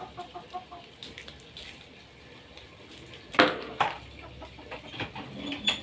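Chickens clucking in short runs of notes, with a sharp clatter about three and a half seconds in and a second, weaker knock just after.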